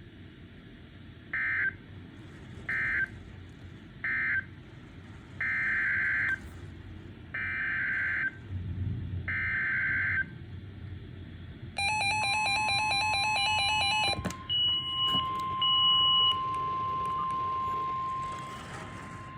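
Emergency Alert System SAME data bursts from a NOAA Weather Radio broadcast. First come three short buzzing bursts that close the previous message, then three longer bursts that announce the next warning. These are followed by rapid pulsing alert beeps and a steady single-pitch warning alarm tone.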